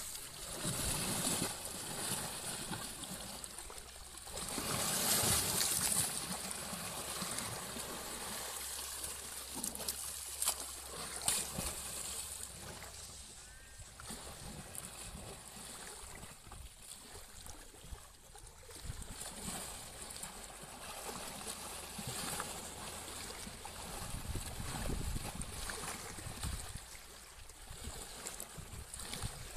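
Water splashing and sloshing as an Asian elephant rolls and plays in a muddy river, with a louder surge of splashing about four to six seconds in and a few sharp splashes around ten to eleven seconds.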